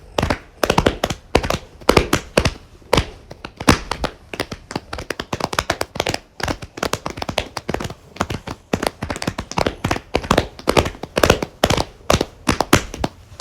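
A very small group applauding: the separate, uneven hand claps of a few people, several a second.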